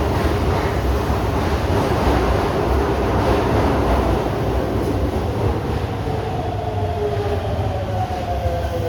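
Electric subway train running into the platform: loud rumble of wheels on rail, and from about halfway through a motor whine of several tones falling in pitch as the train slows to a stop.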